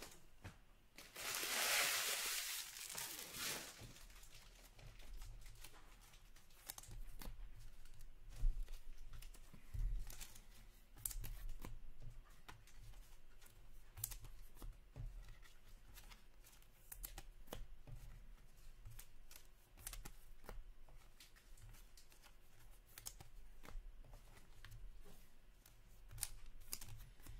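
A trading card pack's wrapper ripped open about a second in, in one loud tear lasting a couple of seconds. Then hockey cards are handled and shuffled on the table, with scattered light clicks and ticks.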